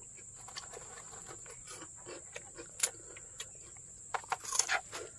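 Close-up eating noises: many short wet clicks of chewing and lip smacking, with a quick cluster near the end, over a steady high-pitched insect drone.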